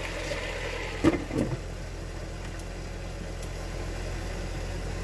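A lid is put on a frying pan of stir-fried vegetables with a sharp clank about a second in and a lighter knock just after, over a steady low hum.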